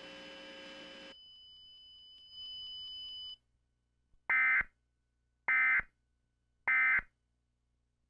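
Emergency Alert System end-of-message signal: three short, loud bursts of digital data screech, about a second apart, marking the close of the alert. Before them, a faint steady hum and hiss with a thin high whine that stops about three seconds in.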